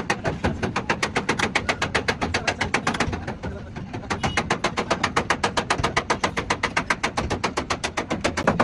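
Rapid, evenly spaced taps of a hammer on a car's steel body panel during dent work, about six blows a second, with a short lull a little past the middle.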